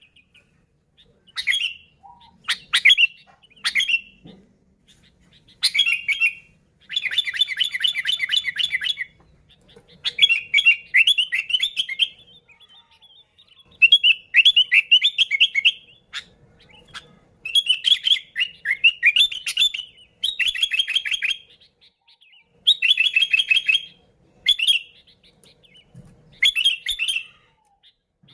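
Sooty-headed bulbul singing loudly and busily: short bubbly phrases of quick chirping notes, repeated every second or two with brief pauses between.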